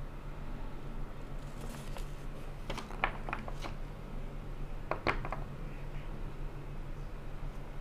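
Small sharp plastic clicks and rattles from handling a bicycle light's plastic handlebar bracket with its toothed strap, in two short clusters about two seconds apart, over a low steady hum.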